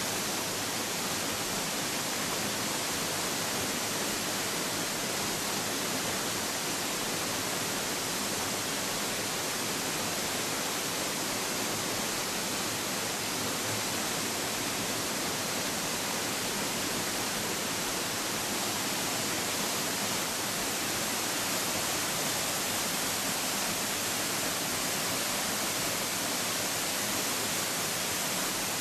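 Tall waterfall crashing down a rock cliff and over boulders, heard close to its foot as a steady, even rush of falling water and spray.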